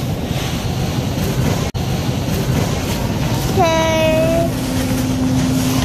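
Steady grocery-store background hum and hiss from the chilled produce aisle, cutting out for an instant about two seconds in. A little past halfway a short pitched sound dips slightly and holds for under a second, and a steady low tone carries on after it.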